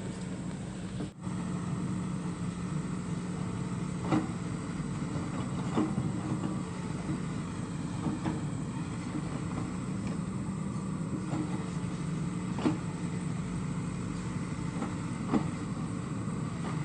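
SANY SY75 long-arm excavator's engine running steadily, with several sharp knocks scattered through.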